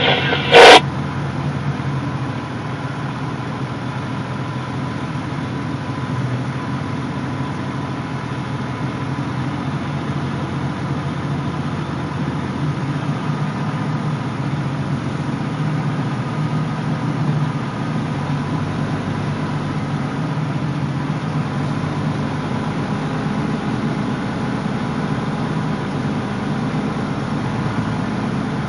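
Heavy-haul rig's diesel engine running steadily at low revs. A short, very loud burst of noise comes about half a second in.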